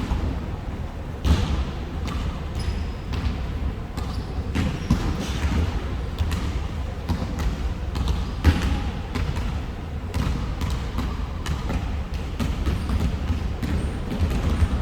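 Basketballs bouncing on a gym floor, with many irregularly spaced thuds.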